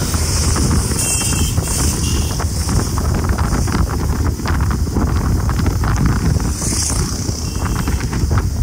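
Wind rumbling over the microphone on a moving Bajaj Pulsar 220 motorcycle, a loud steady buffeting with the bike's single-cylinder engine and road noise beneath it.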